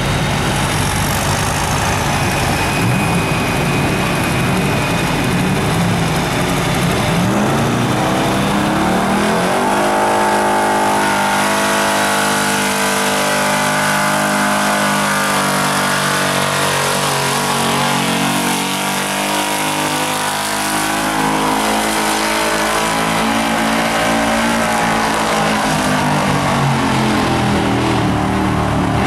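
Improved-stock pulling pickup truck's engine running at high revs under full load as it drags a weight sled down the track. From about ten seconds in the engine note is a loud, nearly steady high-pitched drone that sags a little midway and recovers.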